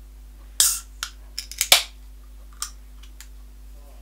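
Aluminium pull-tab can of pilsner being opened. A sharp crack and short hiss of escaping gas come a little over half a second in. A few small clicks follow, then a second, louder crack with a hiss just under two seconds in, and one more light click later.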